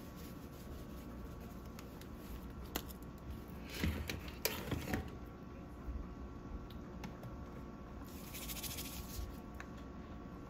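Quiet kitchen handling sounds while cooking: a few light knocks and scrapes about four seconds in and a brief soft hiss about eight seconds in, over a steady low hum.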